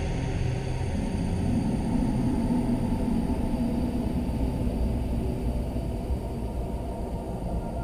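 Dark ambient music: a dense, low rumbling drone with a few faint high held tones above it. The drone holds steady throughout, with no beat or melody.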